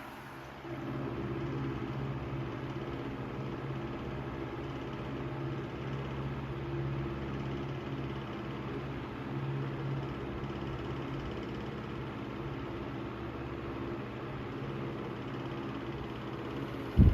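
Antique GE Vortalex 16-inch table fan running: a steady motor hum with the blades moving air.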